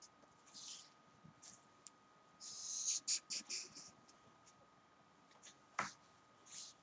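Felt-tip marker drawn across paper: soft scratchy swishes, a short stroke about half a second in and a longer one around two and a half to three and a half seconds in, with a few small clicks. A single sharp tick comes near the end.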